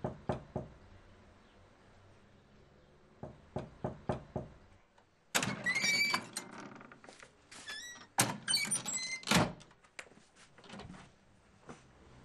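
A few sharp knocks, then a quick run of knocks a few seconds in. After that a door creaks and scrapes loudly twice, each time with wavering high squeaks.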